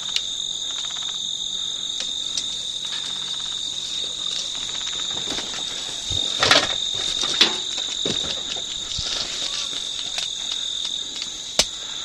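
Steady high-pitched chorus of insects such as crickets, with a few sharp clicks and knocks; the loudest comes about six and a half seconds in.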